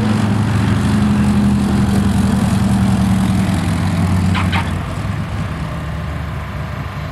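De Havilland Canada DHC-2 Beaver's radial engine droning steadily as the aircraft passes low over the runway. The drone drops in level about four and a half seconds in, just after a brief high chirp.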